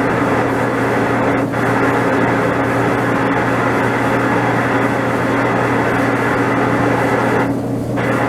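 Hitachi DE-N35FY electric clothes dryer running with a loud, steady mechanical noise over a low hum. It is the abnormal running noise that the owner set out to cure with a new drive belt, cleaning and oiling. The hiss thins out briefly about a second and a half in and again near the end.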